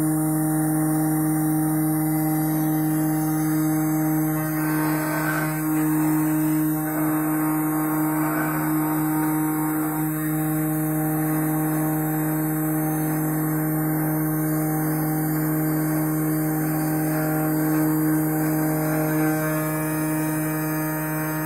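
Small CNC spindle motor running at a steady pitch as a V-bit engraver mills isolation tracks into a copper-clad PCB, with scraping cutting noise that swells and fades as the tool moves.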